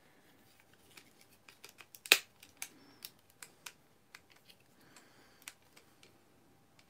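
Hard plastic parts of a Transformers action figure clicking and snapping as they are twisted and pressed, in an irregular run of sharp clicks with one much louder snap about two seconds in: a part being forced that will not lock in.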